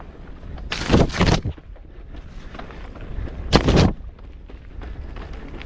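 Mountain bike descending a dirt forest trail, heard from a helmet camera: a steady low rumble of rolling and wind on the microphone, broken twice by loud bursts of rattling noise, about a second in and about three and a half seconds in, as the bike jolts over bumps.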